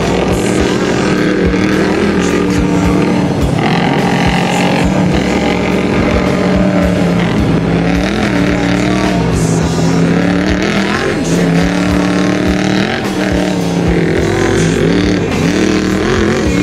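Engines of several long-travel off-road trucks running hard across sand dunes, their pitch dipping and rising again several times as they rev and shift.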